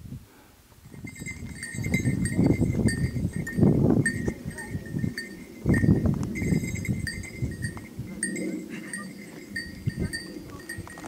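A small bell jingling with light, irregular ringing pings as it swings, over louder irregular rustling and scuffing.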